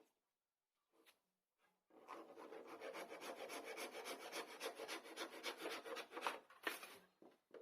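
Wood being rubbed down by hand, a quick, even back-and-forth rasping that starts about two seconds in and lasts about five seconds. A few short knocks come before and after it.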